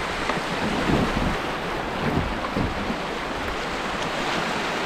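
Flowing creek water making a steady rushing noise, with irregular gusts of wind buffeting the microphone.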